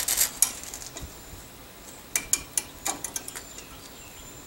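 Sharp metallic clicks and clinks of drum brake hardware handled by hand, as a brake shoe hold-down pin is turned to line it up with its spring and retainer. A few clicks come at the start, then a run of them from about two seconds in.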